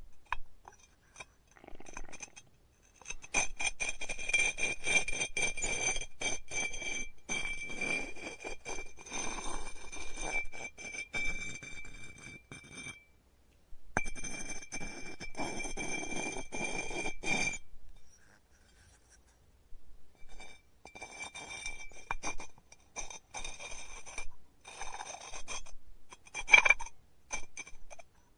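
A tool scraping against clay on a spinning pottery wheel: rough scratchy scraping with fast clicks and a steady high ringing tone. It starts about three seconds in, pauses briefly, stops for a couple of seconds in the middle, then resumes in shorter strokes, with one sharp click near the end.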